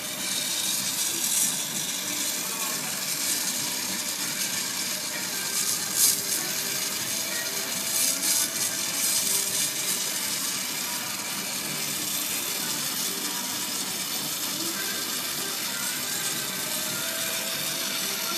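Glassblowing torch flame burning with a steady hiss, with a few brief louder spots about one and a half, six and eight to nine seconds in.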